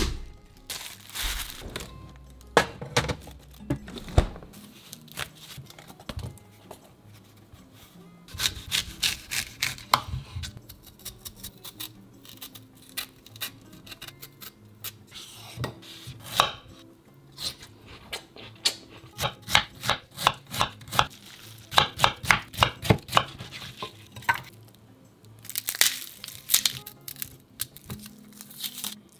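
Kitchen knife chopping food on a wooden cutting board in quick runs of strokes, several a second, with pauses between the runs. A few dull knocks come in the first few seconds.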